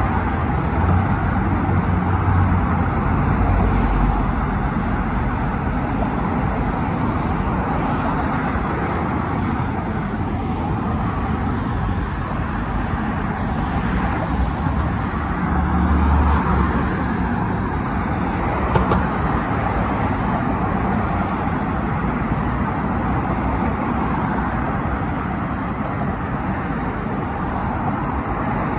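Steady road traffic on a wide multi-lane city avenue: cars passing by in a continuous rush of engine and tyre noise, swelling louder a few times, around a second in and again about halfway through.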